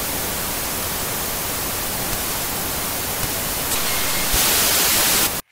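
Analogue TV static sound effect: a steady hiss of white noise that grows brighter and louder about four seconds in, then cuts off suddenly near the end.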